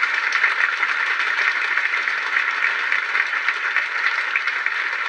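Audience applauding, a dense steady clatter of many hands clapping.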